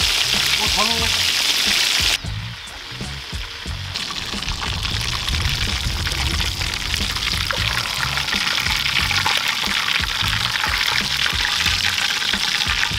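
Whole tilapia deep-frying in a pan of hot oil: a steady, dense sizzle, which drops suddenly and is quieter for about two seconds a couple of seconds in, then returns. Background music with a steady beat plays under it.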